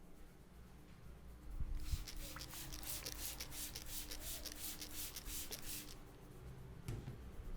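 Hands rubbing briskly through hair on the scalp: a dense, rustling scratch of many quick strokes that starts about two seconds in and stops about six seconds in. A single sharp click follows near the end.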